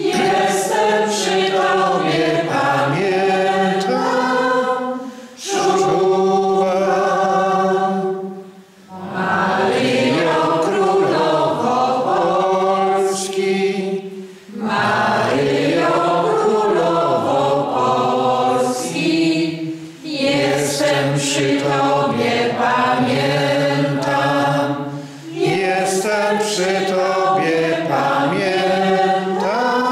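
A small group of men and women singing a worship song together, in phrases of about five seconds with short breaths between them.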